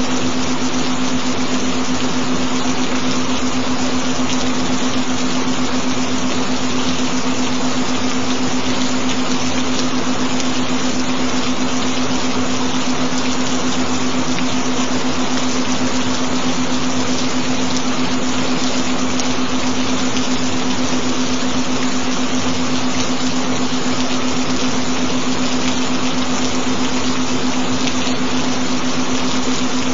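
Gentle rain: a steady, even hiss of rainfall. Underneath it runs a single steady low humming tone, a binaural frequency tone.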